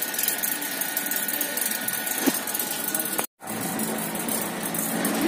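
Electric potter's wheel running, its electric motor and belt drive giving a steady hum with a thin high whine. The sound drops out for a moment a little over three seconds in, then carries on.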